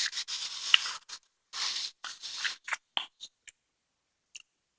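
A person chewing and eating between sentences: a breathy hiss in the first second, then a scatter of short, soft mouth clicks and smacks.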